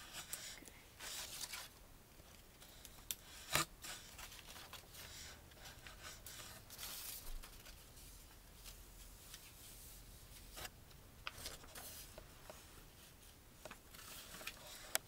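Paper rustling and crinkling as a paper mask is handled, with short tearing sounds of stickers being peeled and pressed on. A sharp tap about three and a half seconds in is the loudest sound.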